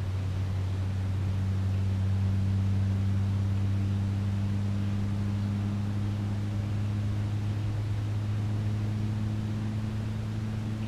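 A machine running with a steady low drone, its pitch creeping up slightly over the last few seconds, over a faint hiss of outdoor background noise.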